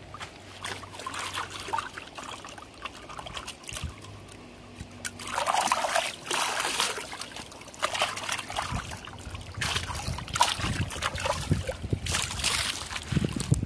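Water sloshing, splashing and trickling as a cooking pot is rinsed out with river water, in irregular bursts that get louder about five seconds in.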